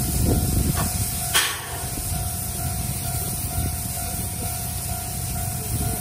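JNR Class C57 steam locomotive (a 4-6-2 Pacific) rolling slowly past, its wheels and running gear making a steady low rumble on the rails. A short, sharp hiss of steam comes about a second and a half in, and a steady tone from the level-crossing warning bell rings underneath.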